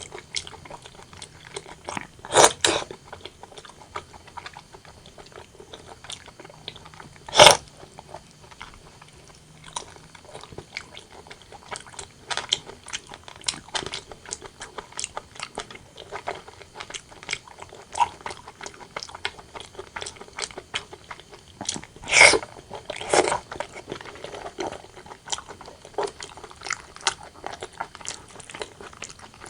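A person chewing and biting braised pork and rice close to the microphone, with a steady run of small mouth clicks and a few much louder bites: one about two and a half seconds in, one about seven and a half seconds in, and two close together about twenty-two seconds in.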